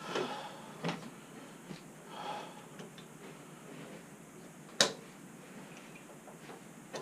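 Scattered small clicks and brief rustles of hand-tool work on a motorcycle's front end. The loudest is a single sharp click about five seconds in.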